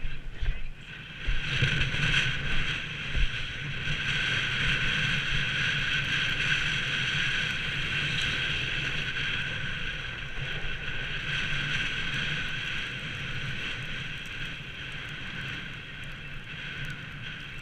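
A bike ridden downhill over snow: a steady rush of riding noise and wind on the microphone, with a few knocks and jolts in the first few seconds.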